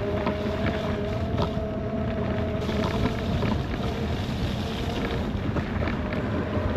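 Riding an electric bike: a steady motor whine in two tones over rushing wind and tyre noise, the whine fading about five seconds in.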